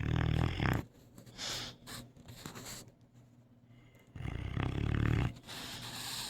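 A sleeping Cane Corso snoring: two loud, low, rattling snores about four seconds apart, with softer airy breaths between them.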